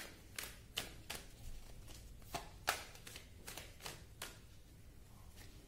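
A deck of tarot cards being shuffled by hand: a string of quiet, irregular card clicks and taps.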